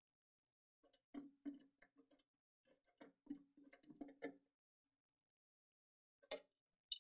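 Small metallic clicks and ticks of a faucet's washers and mounting nut being turned by hand onto its threaded shank, coming in an irregular cluster, then two sharper clicks near the end.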